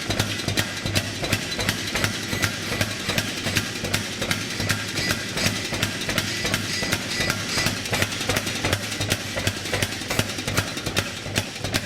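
Power hammer striking hot damascus steel in a steady rhythm, about three blows a second, over the constant hum of its motor, as the billet is drawn out.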